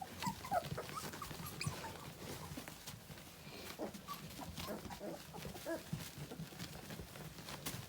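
Two-and-a-half-week-old Saint Berdoodle puppies squeaking and whimpering in short, high, scattered calls, with small clicks and scuffs among them.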